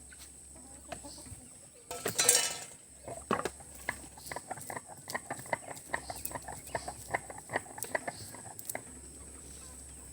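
Whole garam masala spices being crushed and ground on a grinding stone. There is a short scraping rush about two seconds in, then a quick run of clicks and taps, about four a second, for several seconds.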